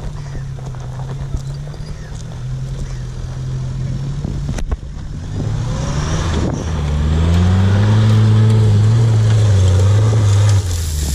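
A Mitsubishi L200 pickup's engine revs up about halfway through and pulls hard under load as the truck drives up a steep loose-dirt mound, then drops off abruptly near the end. Before that, an engine idles steadily.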